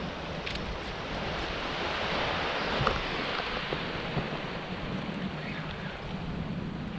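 Small waves washing in over a flat sandy shore, with wind rumbling on the microphone.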